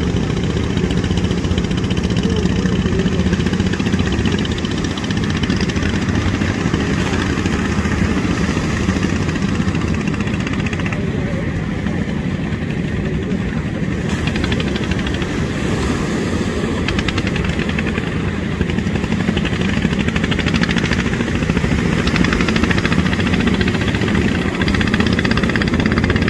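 Steady drone of a small fishing boat's engine running offshore, with surf washing in on the beach.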